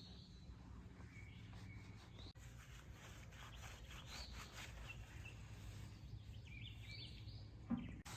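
Faint outdoor ambience with a steady low background hum and scattered short bird chirps, plus a small knock near the end.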